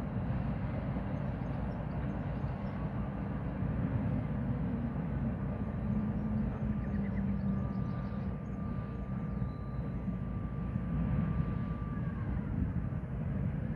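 A steady low mechanical rumble, with a faint high whine held for several seconds past the middle.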